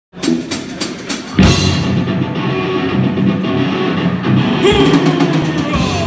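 Four evenly spaced sharp clicks, a count-in, then a live rock band comes in loud about a second and a half in: drum kit and electric guitars playing together.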